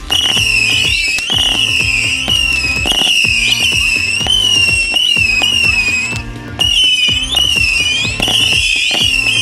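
Electronic dance music with a steady beat, block-like bass notes and a wavering, high-pitched lead line; the whole mix drops out briefly about six seconds in.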